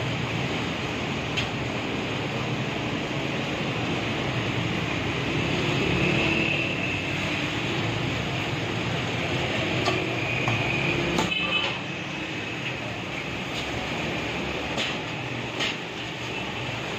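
Steady, even roar of busy shop and street background noise, with a few sharp metallic clinks of utensils scattered through it.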